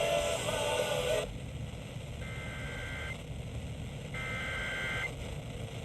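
EAS digital SAME header bursts: two roughly one-second bursts of two-tone warbling data, about a second apart. They are the coded alert header sent before a weather warning is read. A short tail of music fades out in the first second.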